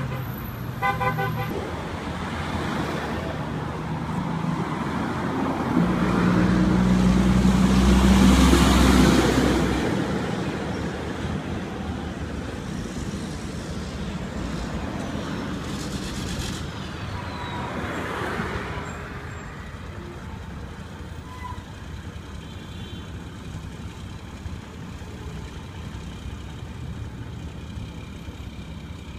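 Road traffic going past: a quick run of short horn toots about a second in, then a motor vehicle's engine growing louder to a peak about eight seconds in as it passes and fading, and another vehicle passing around eighteen seconds.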